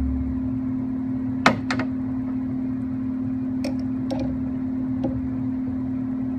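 A few sharp metal clicks of a small hand tool working the gib adjusting screws on a 7x10 mini lathe's carriage as they are snugged up. The loudest click comes about a second and a half in, with lighter ones around four and five seconds, over a steady hum.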